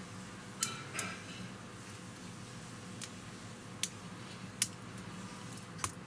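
About six small, sharp clicks, spread unevenly, as a small metal tool pries at a laptop touchpad button part to release it.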